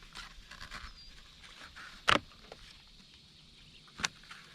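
Fishing tackle being handled: small scattered clicks and rustles, with one loud sharp knock about two seconds in and a second, lighter knock near the end.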